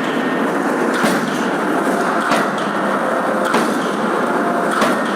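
Steady factory machine din with a sharp strike roughly once a second, typical of forging-shop work.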